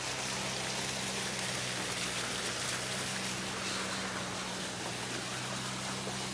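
Steady hiss of water splashing into a garden pond, with a low steady hum underneath.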